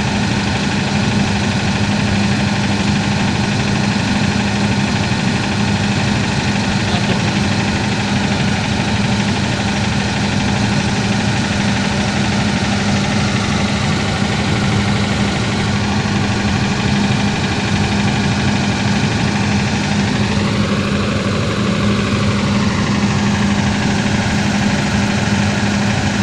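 An engine running steadily at constant speed with an even hum, typical of a site generator powering a butt-fusion welding machine.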